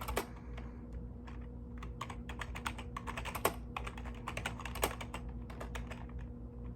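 Typing on a mechanical keyboard: irregular runs of sharp key clacks with short pauses, thinning out and stopping about five seconds in. A steady low electrical hum sits underneath.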